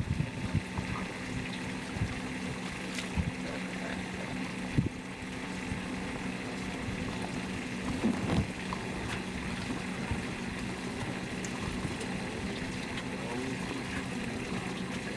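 A boat motor running with a steady hum, with a few short knocks around three, five and eight seconds in.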